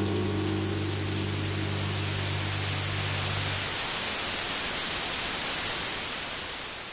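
Television static hiss that swells to its loudest about three and a half seconds in and then fades out, with a steady high whine over it and a low hum that stops about four seconds in.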